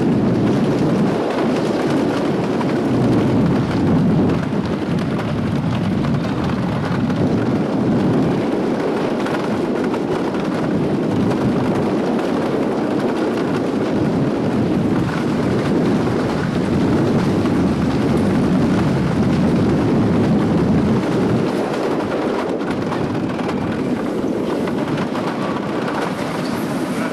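Wooden roller coaster train heard from on board, running over the track with a loud, steady rumble of wheels on the wooden structure. The rumble eases slightly near the end as the train rolls into the station.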